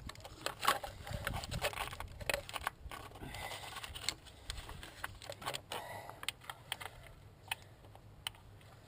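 Hand tools and small metal parts clicking and clinking irregularly as they are handled, busier at first and thinning out in the second half.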